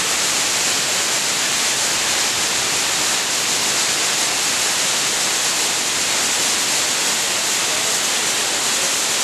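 Margaret Falls, a waterfall pouring down a rock face, making a steady, even rush of falling water with a bright hiss.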